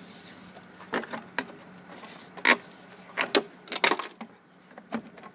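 Irregular sharp clicks and knocks from a lawn mower's recoil starter being worked by hand to loosen it up after oiling it with motor oil.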